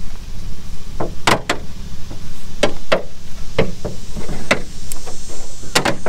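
Magnets sewn into a mesh window screen snapping onto a vehicle's steel door: a series of sharp clicks, about nine, several in close pairs, over a steady low rumble.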